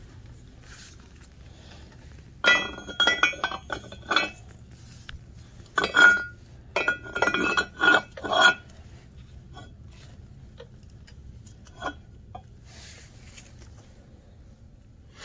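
Metal clinks and knocks as a high-pressure fuel pump housing and its metal parts are handled on a bench. There are two clusters of sharp, ringing clinks, a few seconds in and again about six seconds in, then a single lighter tap later.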